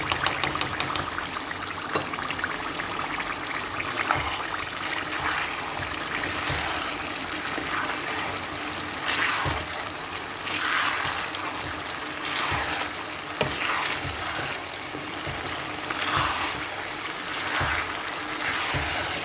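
Minced beef sauce sizzling in a pot as chopped chicken sausage is tipped in, with light clicks at the start. A spatula then stirs it through, giving a scraping swish about once a second in the second half.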